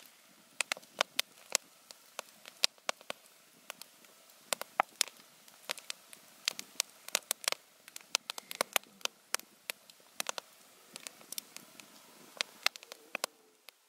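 Wood campfire crackling, with frequent irregular sharp pops and snaps over a soft hiss of burning logs.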